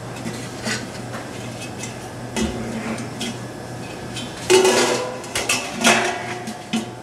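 Stainless steel pot lid and metal tongs clanking as the lid is lifted off a cooking pot. A few light clicks come first, then two louder ringing clanks, about halfway through and near the end, over a steady low hum.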